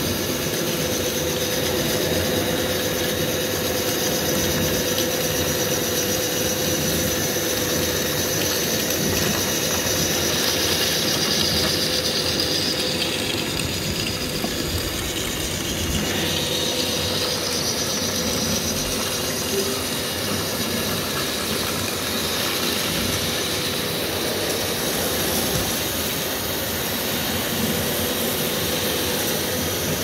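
Radio-controlled scale Liebherr L574 wheel loader with a sweeper-brush attachment running steadily: a constant mechanical whirr with a steady whine over a hiss, as the brush works sand and grit across a concrete floor.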